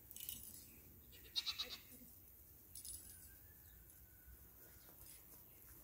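A young goat gives one short bleat with a rapid pulsing quaver, about a second and a half in.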